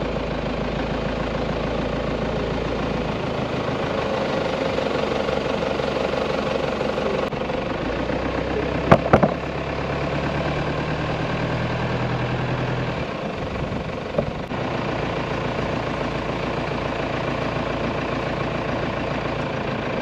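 Four-wheel drive's engine running steadily as it drives along a dirt track, with two sharp knocks about nine and fourteen seconds in.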